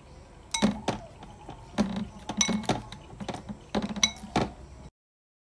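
Green plastic spoon knocking and clinking against a glass bowl of cut tomatoes, about ten irregular knocks over four seconds, the glass ringing briefly after the sharper ones. The sound cuts off suddenly a little before the end.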